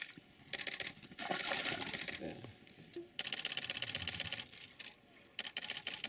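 Camera shutters firing in rapid bursts, several trains of fast even clicks about a second or two long each, with short pauses between.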